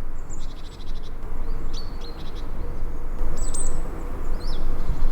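Birds chirping and trilling in short high calls over a loud, steady low rumble.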